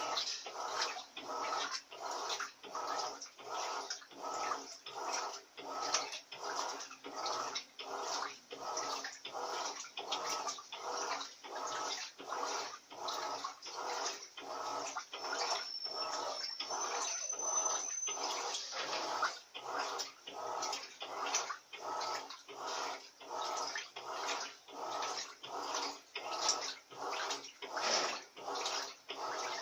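Electrolux Silent Control LAC 16 washing machine churning a soaked duvet load, with water sloshing in an even rhythm of about two strokes a second. Two brief high tones sound near the middle.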